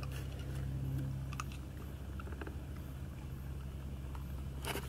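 A steady low mechanical hum, engine-like, with faint scattered clicks and crunches over it and a few sharper clicks near the end.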